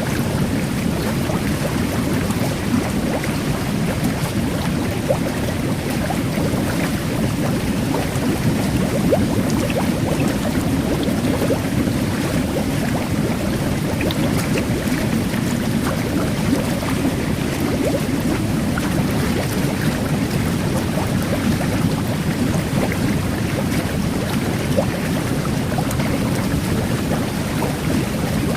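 Jet bath water churning steadily with a low, even rush, with fine carbonated-water bubbles crackling in tiny scattered pops over it.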